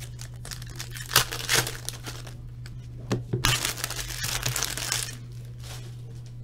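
Foil trading-card pack wrapper being crinkled and torn open by hand: short crinkles about a second in, then a longer stretch of tearing and crackling from about three and a half to five seconds.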